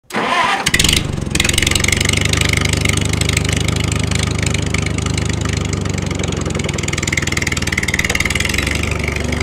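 A steady engine putter, like a small tractor engine idling, from a miniature model tractor as it pulls loaded trailers. It starts right at the beginning, with a short burst of noise about a second in.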